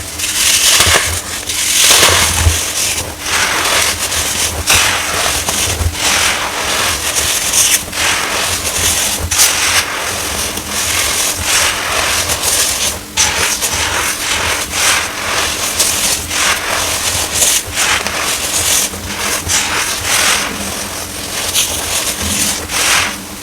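Compressed baking soda being crushed: a continuous stream of dense crunching and crackling.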